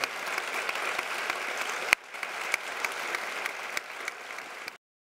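Audience applauding, a dense patter of claps that cuts off abruptly near the end.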